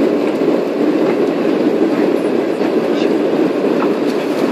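Steady cabin noise of a jet airliner climbing after takeoff: engine and airflow noise heard from inside the cabin as an even, low rush.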